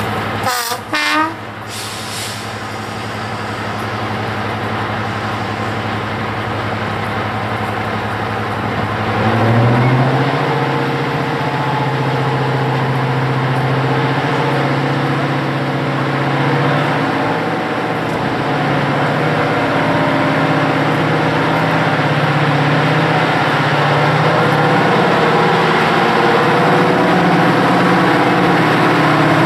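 Class 55 Deltic diesel locomotive with its twin Napier Deltic two-stroke engines running, a short horn blast about a second in. At about ten seconds the engine note rises and gets louder as the locomotive takes power and pulls away, growing steadily louder as it approaches.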